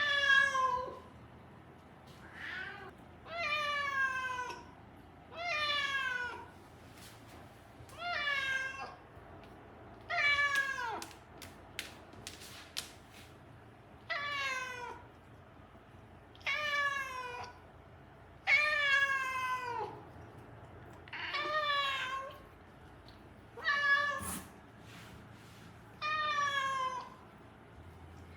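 A cat meowing over and over, about twelve long drawn-out meows every two seconds or so, each falling in pitch at the end. A few faint clicks come between the meows near the middle.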